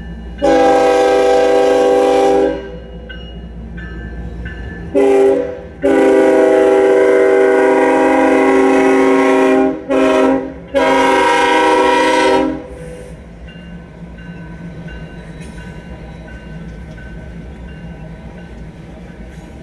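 Diesel locomotive air horn blowing five blasts, long, short, long, short, long, each a loud, steady multi-note chord. A steady low train rumble runs underneath and carries on after the horn stops.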